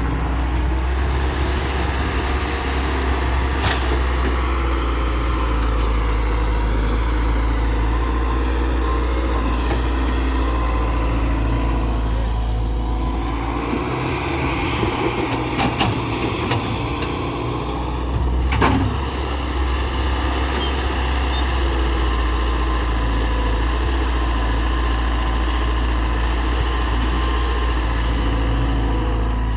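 Heavy diesel engine of a Hyundai excavator running steadily with a deep, even rumble while it works, with a few short sharp knocks on top, the clearest about two thirds of the way through.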